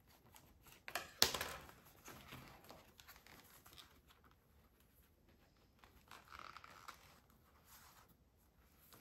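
Paper rustling and crinkling as a handmade journal's sewn paper pages and card cover are handled and folded, with one sharp tap about a second in.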